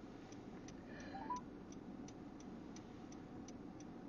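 A car's indicator flasher ticking steadily, about three clicks a second, with the car stopped. A short rising electronic beep sounds about a second in.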